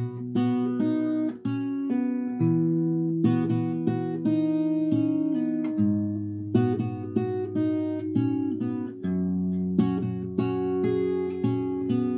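Fingerstyle acoustic guitar playing a chord-melody phrase: plucked melody notes ringing over held bass notes, the bass changing every second or two.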